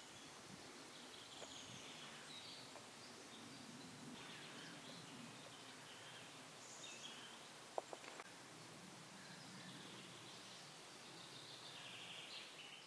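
Faint woodland ambience: scattered bird calls and song over a steady low hiss, with a quick cluster of two or three short, sharp sounds a little past the middle.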